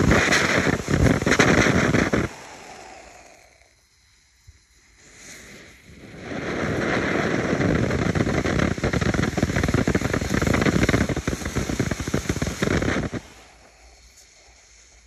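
Vulcan 'Jumping Jelly Beans' F2 smartie fountain burning, its spray thick with crackles. One tube burns out about two seconds in. After a few seconds' lull the next tube fires and sprays and crackles for about seven seconds, then stops suddenly.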